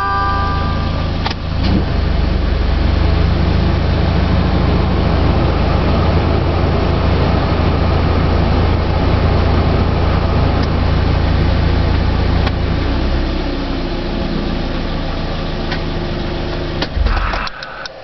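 Car engine idling steadily at about 1,000 rpm, its sound easing slightly a little past the middle. It is switched off near the end with a brief clatter.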